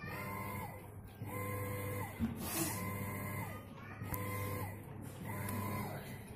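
An LG WF-N6861DN top-loading washing machine agitating: its motor runs in about five short pitched pulses, one every second and a half or so, each rising and then falling in pitch as the wash plate reverses. This is the noise that the technician puts down to a faulty gearbox in the wash assembly.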